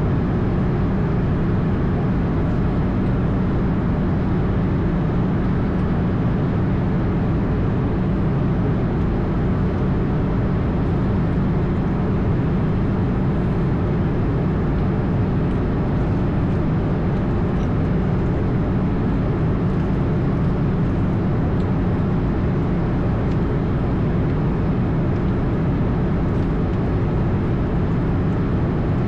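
Airbus A220 flight deck noise in flight: a steady, even rush of airflow and engine drone, strongest in the low range, with no changes.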